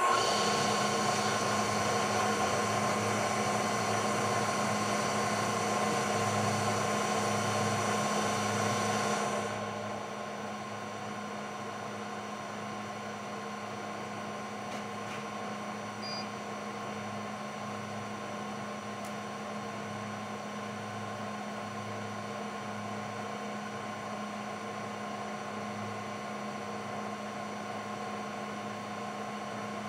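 Bridgeport vertical milling machine running with a steady hum. About nine and a half seconds in the sound drops quieter and the higher hiss fades away, while the hum carries on.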